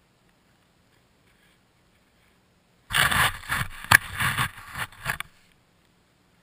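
Scraping and knocking on a GoPro's waterproof housing, with one sharp click in the middle, lasting about two and a half seconds and starting about three seconds in.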